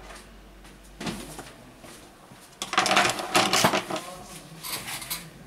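Small hard plastic and metal items clattering as they are picked up and handled. There is a single click about a second in, a dense burst of rattling about three seconds in, and a few more clicks near the end.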